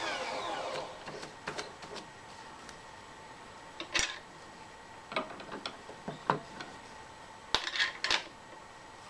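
Scattered light metallic clicks and clinks of steel tooling and machine parts being handled: a sharp one about 4 seconds in, a few smaller ones, and a closely spaced pair near the end.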